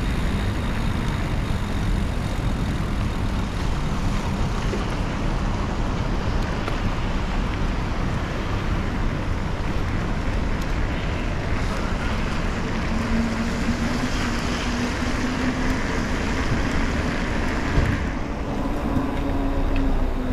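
Steady rumble of wind on the microphone mixed with wet-road traffic noise while cycling in the rain. A low steady hum comes in about two-thirds of the way through and holds to the end, and the hiss above it drops off suddenly near the end.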